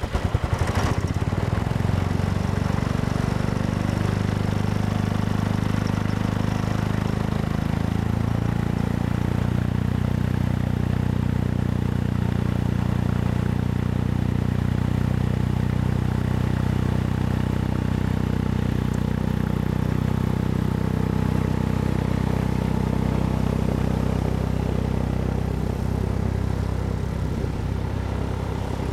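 Weber engine of a rotortec Cloud Dancer II gyroplane running with its pusher propeller turning. The engine note rises about seven seconds in and then holds steady, growing a little fainter near the end as the gyroplane taxis away.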